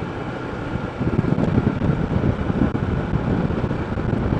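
Honda ADV 160 scooter on the move: engine running under wind buffeting on the microphone, which grows louder and gustier about a second in.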